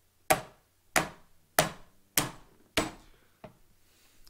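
Five sharp, loud hits made by hand, evenly spaced a little over half a second apart, then a fainter sixth about a second later.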